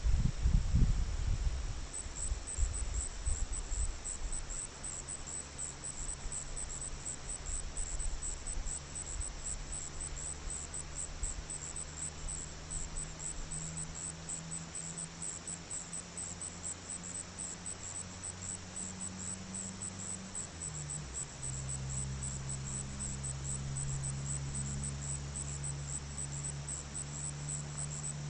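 Crickets chirping in a high-pitched, rapid, even pulse that starts about two seconds in, over a steady low hum. A few loud low rumbles at the very start.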